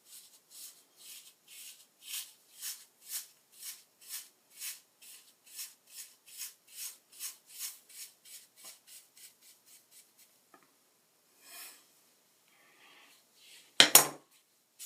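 Hair being back-combed with a teasing comb: a quick run of rasping strokes, about two a second, that stops about ten seconds in. A loud sharp knock near the end.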